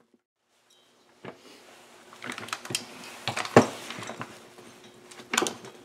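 Irregular clicks, knocks and light clatter of plastic and metal chainsaw parts being handled on a wooden workbench as the handle and housing of a Husqvarna saw are worked off its engine. They begin about a second in, with the loudest knock in the middle.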